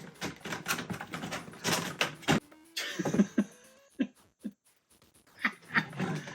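Plastic action-figure parts and ratcheting joints clicking and knocking as the figure's legs are raised and it is worked into robot mode. A rapid run of clicks comes first, then scattered single clicks.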